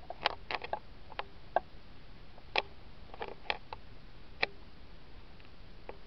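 About a dozen light, sharp clicks and taps at uneven intervals over a quiet room background.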